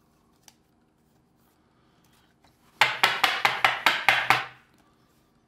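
A quick run of about ten sharp clicks and clatters of small hard objects being handled, starting about three seconds in and lasting under two seconds, with near silence before it.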